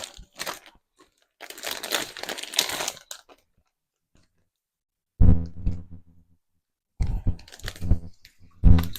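Vacuum-sealed plastic bag of paydirt being torn open and handled: a crinkling, crunching plastic rustle lasting about three seconds. Later come a few short, low-pitched sounds.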